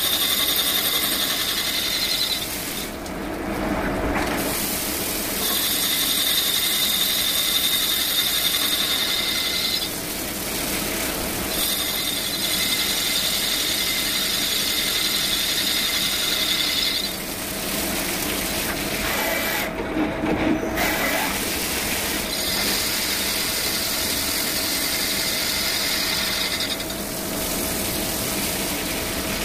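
CNC lathe turning a spinning metal workpiece under coolant spray: a steady, high-pitched machining whine that drops out briefly about four times and then resumes.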